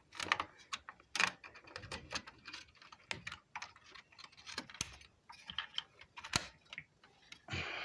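Irregular plastic clicks and taps from handling a RAM stick and fitting it into a motherboard memory slot, with a short rustle near the end.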